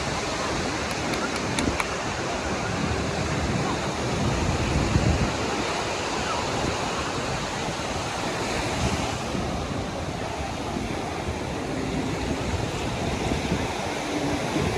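Sea surf washing steadily on the beach, with wind gusting on the microphone.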